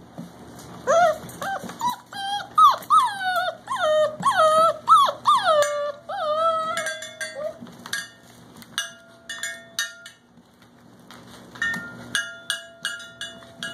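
A litter of young puppies whining and yelping: many high cries that each fall in pitch, crowded together in the first half, then thinner drawn-out whines with light clicks.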